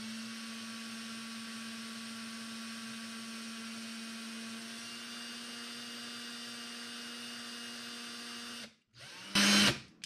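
Ryobi cordless drill with a 1/16-inch bit running slowly and steadily, drilling a pilot hole into a diecast car's base rivet: a steady motor whine that stops about nine seconds in. A short, loud burst of noise follows just before the end.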